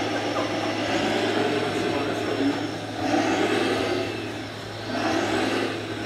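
Radio-controlled scale trucks and a model Volvo excavator running, their machine noise swelling and easing several times over a steady low hum, with voices in the background.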